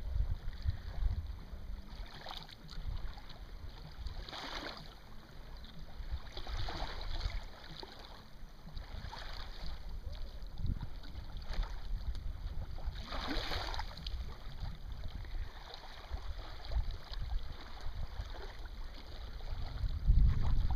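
Small sailboat moving slowly through calm water, with water lapping and swishing against the hull in a few brief surges. A low wind rumble on the microphone runs underneath, with a stronger gust buffeting near the end.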